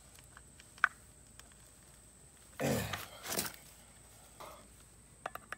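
A man's short grunt, falling in pitch, followed by a breathy huff, with a few faint clicks before and after.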